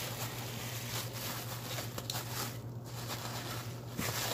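Plastic bubble wrap crinkling and rustling as a hand handles it, over a steady low hum.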